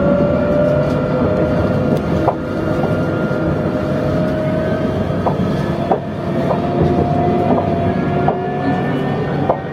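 Electric tram running along its track, heard from the driver's cab. A steady motor whine climbs slowly in pitch as it gathers speed, over wheel-on-rail rumble, with scattered sharp clicks and knocks as the wheels pass rail joints and switches.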